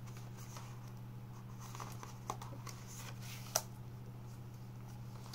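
Faint handling of a plastic Blu-ray case: a few light ticks and rustles, then one sharp click about three and a half seconds in, over a steady low hum.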